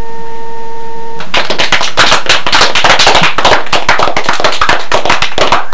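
A short electronic chime tune holds one note and stops about a second in. Then several people break into fast, irregular, sharp clapping that runs on.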